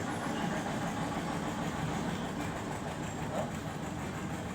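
Steady background rumble with a hiss, continuous and unchanging, from a running machine or distant traffic.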